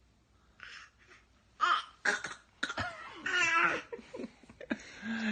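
A baby coughing in short bursts, with a longer pitched babbling sound in between.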